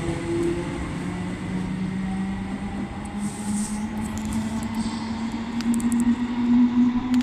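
Class 320 electric multiple unit accelerating away from the platform, its traction motor whine rising slowly and steadily in pitch over the rumble of the wheels, with a few light clicks in the second half.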